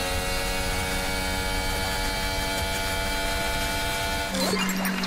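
Mercedes Formula 1 car's 1.6-litre turbocharged V6 hybrid engine, heard from the onboard camera, running flat out at steady high revs on a straight. About four seconds in, the engine note breaks off abruptly into a different sound.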